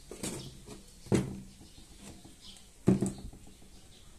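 Plastic bottles handled and set down on a tabletop: a soft rustle, then two sharp knocks a little under two seconds apart.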